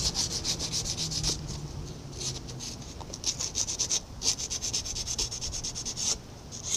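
Strip of abrasive paper drawn shoe-shine style around a steel lathe shaft, rasping in quick back-and-forth strokes, several a second, in runs broken by brief pauses. The shaft journal is being polished so it will slide through its Babbitt bearing.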